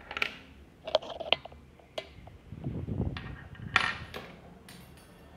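Small plastic and metal parts of a disassembled earbud charging case clicking and tapping as they are handled and set down on a tabletop, with about seven sharp clicks and a brief rubbing sound in between.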